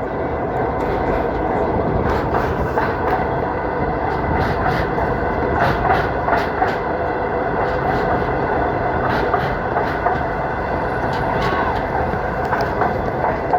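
Passenger train running on the track, heard from inside a coach: a steady rumble of wheels on rail with irregular sharp clicks and rattles.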